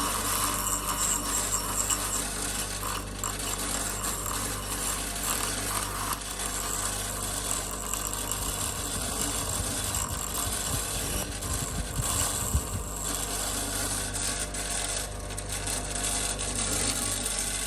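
Small bench grinder running with a ferrocerium (ferro rod) fire-starter rod held against the spinning wheel, a steady motor hum under a harsh, wavering grinding hiss as the rod is worn away into sparks.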